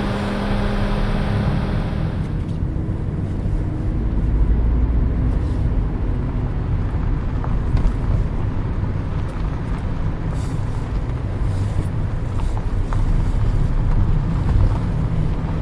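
Car running and driving, with a steady engine and road rumble.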